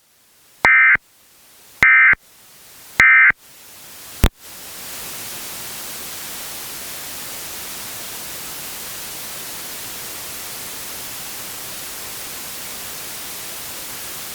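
Emergency Alert System end-of-message (EOM) data tones: three short, shrill two-tone bursts about a second apart, marking the end of the alert. A click follows, then a steady radio static hiss.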